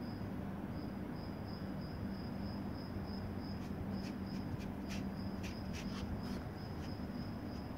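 Crickets chirping in a steady, pulsing high trill. From about halfway in, a run of quick, soft wet clicks comes in as a cat laps raw egg and milk from a plastic tray.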